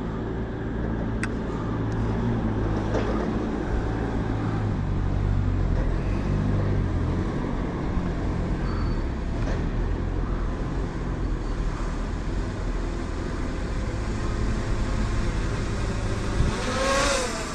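Quadcopter drone's propellers humming steadily, the pitch shifting in steps as the motors change speed. Near the end a louder rush comes in with a falling whine.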